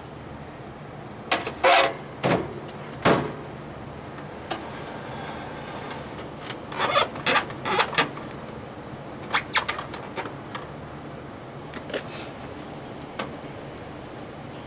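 Scattered knocks, bumps and scrapes as a window air conditioner is shifted over and a door is shut, heard over the steady low hum of the running air conditioner.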